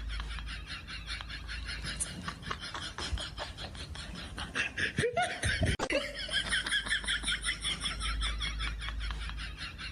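High-pitched laughter in quick, even pulses, with a brief lower sliding cry about halfway through.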